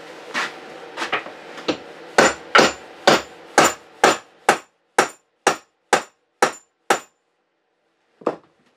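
Hammer blows on a potted ultrasonic fogger unit held against a steel bench vise, each strike sharp with a short metallic ring. A few lighter taps build into a steady run of about two blows a second, which stops near the end and is followed by one more blow after a pause.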